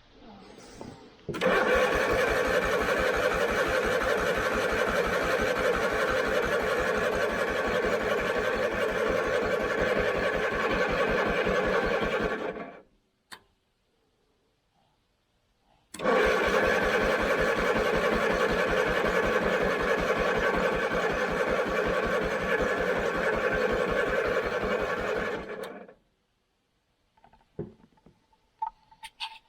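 John Deere 317 riding mower's engine being cranked by its starter in two long attempts, each about ten seconds of fast, even cranking pulses that stop abruptly without the engine catching. The mower won't start because its carburetor is plugged.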